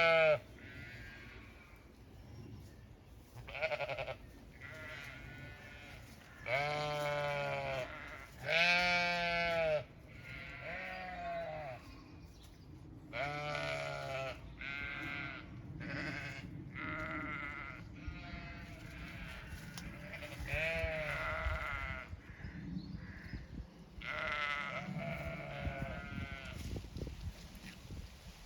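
Zwartbles sheep bleating over and over, a dozen or so calls of about a second each, some loud and close and others fainter, from several animals.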